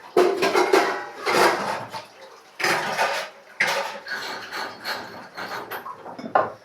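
Dishes and cutlery clattering during a meal, in several loud irregular bursts with a sharp clink near the end.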